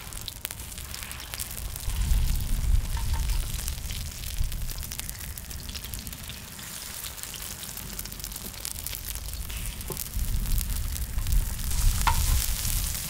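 Egg-battered jeon sizzling and crackling in hot oil on a large cast-iron cauldron-lid griddle, with a wooden spatula working the pieces near the end. A low rumble swells under the sizzle a couple of times.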